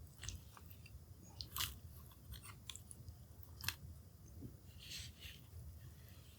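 Charcoal in a hibachi crackling, with scattered small pops and a couple of sharper snaps.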